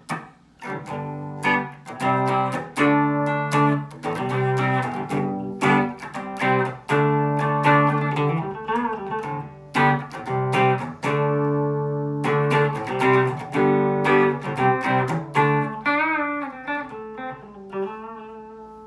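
Fender Mexican Stratocaster electric guitar played on its bridge Lace Sensor "two reds" humbucker: a run of strummed chords and picked notes, ending in one held chord that fades out near the end.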